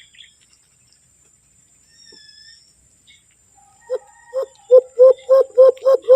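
Cupped-hand dove call imitating the kulo-kulo (alimokon): a run of loud, hollow hoots starting about four seconds in. They come slowly at first, then speed up into a quick, even series.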